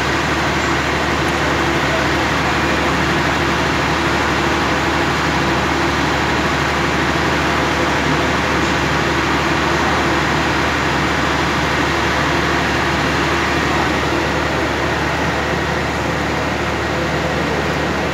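Mobile flash butt rail welding plant's power unit running, a steady machine drone with a constant hum.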